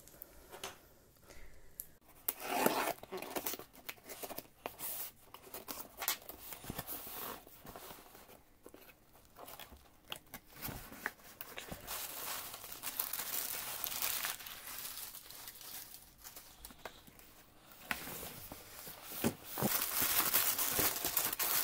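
Packing tape torn off a cardboard box, with a loud rip about two to three seconds in, followed by irregular crinkling and rustling of bubble wrap and tissue paper as the box is unpacked by hand. The crinkling grows denser and louder near the end.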